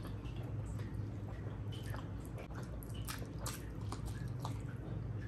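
A person eating rice and curry close to the microphone: wet squishing, smacking and chewing in short clicks, over a steady low hum.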